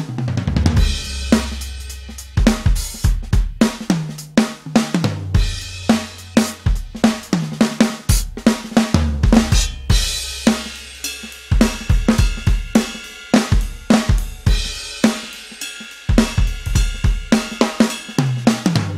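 A drum kit playing a steady groove of kick drum, snare, hi-hat and cymbal hits, with low held notes that change pitch every second or two under the beat.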